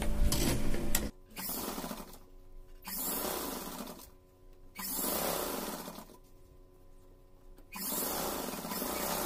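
Sewing machine stitching a seam in several short runs of about a second each, stopping and starting between them.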